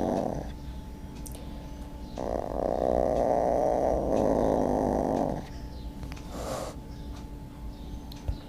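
A cat making a grainy rasping sound in long stretches: one dying away just after the start, a longer one of about three seconds, and a short one later, with pauses between. A small click near the end.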